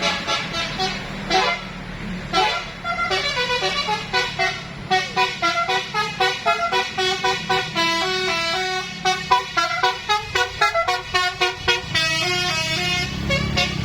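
Tour bus's telolet horn playing a fast melody, a run of quickly changing notes, several sounding at once, over the bus engine running.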